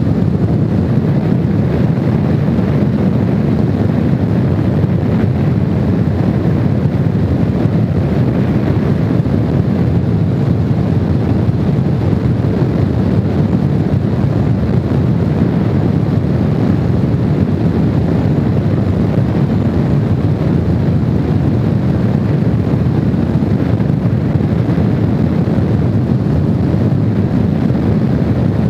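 Honda VFR750 motorcycle being ridden at speed: steady wind rush on the microphone over the bike's running noise, constant throughout.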